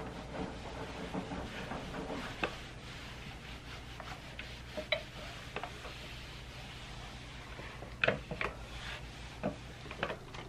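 Electric iron sliding and rubbing over a cotton shirt on an ironing board, with hands smoothing the fabric. A few light knocks and clicks come near the end as the iron and cloth are shifted, over a steady low hum.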